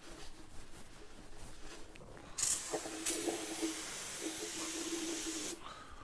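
Aerosol cleaner sprayed from a can in one steady hiss of about three seconds, starting a little over two seconds in and cutting off abruptly; before it, faint rubbing of a rag on the engine block.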